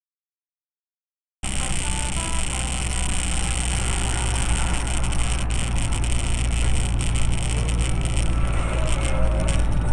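Dead silence for about a second and a half, then the steady running hum of a car on the road, heard from inside the vehicle, as on a dashcam recording.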